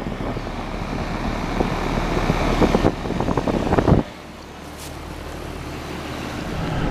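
Outdoor air-conditioning condenser running, with a steady fan and compressor noise and the rustle and knocks of handling close by. About four seconds in, the noise drops suddenly to a quieter steady hum.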